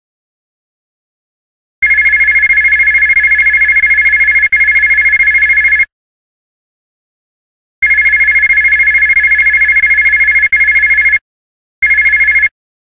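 Electronic telephone-style ringing: a fast-warbling two-note trill in long bursts of about three to four seconds, with silent gaps of about two seconds, and a short final burst near the end.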